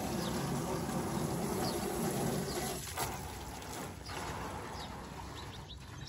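Water pouring and splashing out of a tipped-over evaporative air cooler's tank onto the ground, easing off over the second half, with a couple of knocks against the cooler's metal body.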